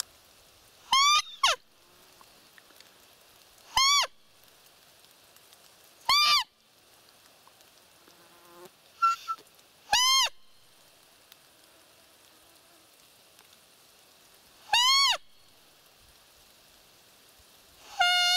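Roe deer call (manok) blown in short squeaks imitating a doe, to lure a rutting roebuck. Seven high, clear calls, each about half a second and arching up then down in pitch, come a few seconds apart, the first two close together.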